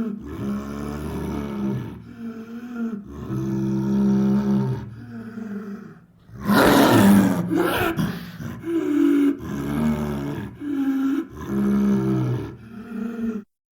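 Smilodon (sabre-toothed cat) creature sound effects: a string of short, low, pitched growls and moans, with one loud, harsh roar about six and a half seconds in. The sounds stop abruptly just before the end.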